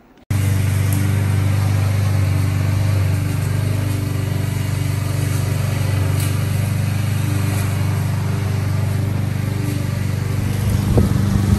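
A steady low motor drone with a hiss over it, starting abruptly as the shot begins. A short rising tone comes near the end.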